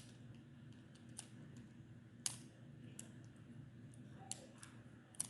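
Infinity cube fidget toy being folded and flipped in the hands, giving faint, irregular clicks about a second apart.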